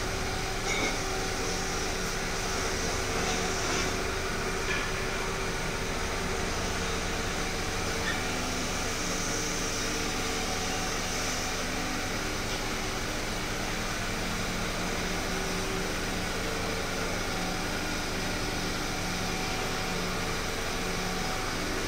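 Steady mechanical drone with a low hum and a few faint steady tones, with a couple of light clicks in the first few seconds.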